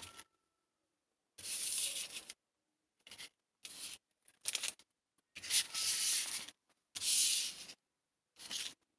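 Rustling and rubbing in about seven short bursts as a rubbery toy chameleon and its printed packet are handled, the longest bursts lasting about a second each.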